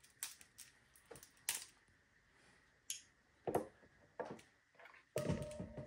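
Scattered small clicks and taps of shellfish shells and a small utensil being handled on a plate as the meat is picked out by hand. A louder, busier stretch of handling noise starts about five seconds in.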